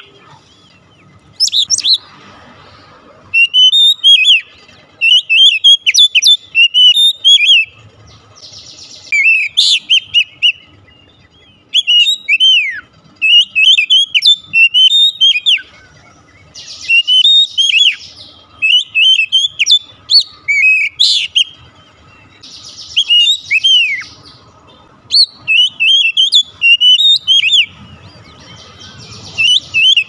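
Male oriental magpie-robin (kacer) in full song: loud bouts of quick, swooping whistled phrases a few seconds long, separated by short pauses, with a few buzzy notes mixed in.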